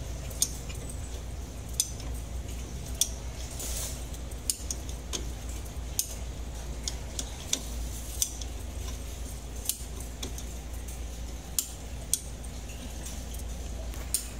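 Ratchet wrench and spanner clicking and clinking against metal while the front shock absorber's top nut is worked loose: scattered sharp metallic clicks, irregular, roughly one every second, over a steady low hum.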